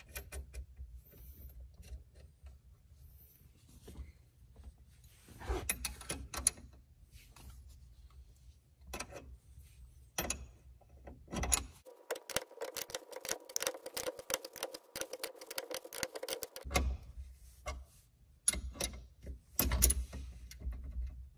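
Small metal clicks and scrapes of a steering wheel pivot pin puller being threaded in and turned with a wrench, drawing a pivot pin out of a GM tilt steering column. There is a run of rapid clicking in the middle.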